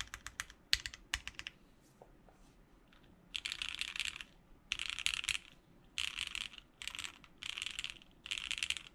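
Mechanical keyboard with linear Cherry MX Black switches and GMK keycaps being typed on. It starts with a handful of single keystrokes, falls nearly quiet for about two seconds, then goes into quick runs of rapid keystrokes, each under a second long, with short gaps between them.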